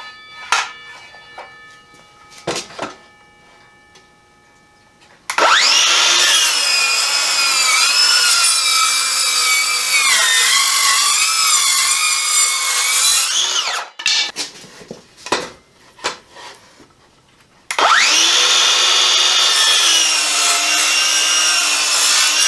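Craftsman V20 7-1/4-inch brushless cordless circular saw with a 24-tooth framing blade cutting a pressure-treated 1x6 board, twice. The first cut is a rip of about eight seconds whose whine dips in pitch partway through as the motor bogs down just a little under a hard push. After a few knocks from handling the board, a shorter cross cut of about five seconds follows.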